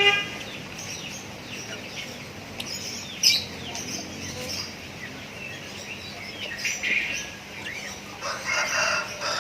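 Lovebirds chirping in many short, high calls, with a louder, lower call near the end.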